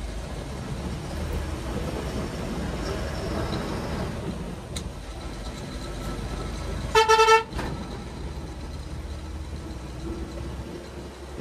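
Steady road and engine noise of a coach bus running along the highway, with one loud vehicle horn blast lasting about half a second some seven seconds in.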